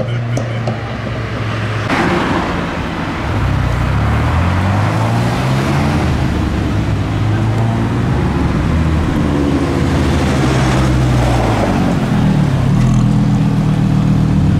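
Audi R8 Spyder's V10 engine revving as the car drives slowly past, its pitch rising and falling several times and growing louder as it comes close.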